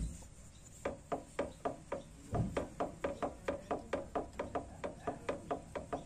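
Quick metallic clicks, about four a second and evenly spaced, starting about a second in. They come from a hand tool working inside the VW Beetle's rear axle bearing housing to free the retaining clip over a bearing suspected of breaking up.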